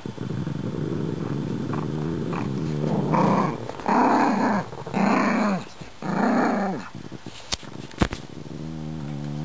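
Pugs growling in play while tugging over a plush toy: a low continuous growl, then four louder growls about a second apart, each rising and falling in pitch. Two sharp clicks come near the end.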